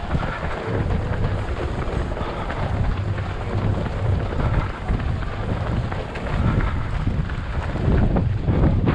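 Wind buffeting a body-worn camera's microphone while running: a loud, uneven low rumble that swells and eases in gusts.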